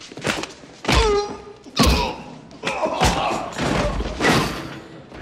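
Fistfight sound effects: four heavy punch thuds landing about a second apart, mixed with a man's pained cries and men shouting.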